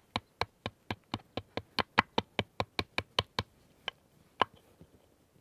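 A hand-held hard stone striking a lump of rock salt to knock bits off: a quick run of sharp clicking taps, about four or five a second, that thins to a few scattered taps after about three and a half seconds.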